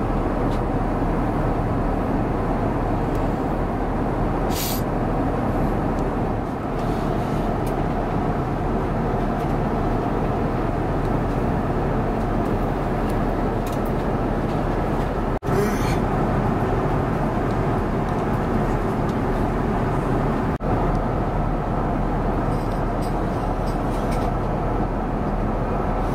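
Steady roar of airflow and engines inside the cabin of an Airbus A350-900 airliner in cruise, with a few light clicks and two brief dips in level.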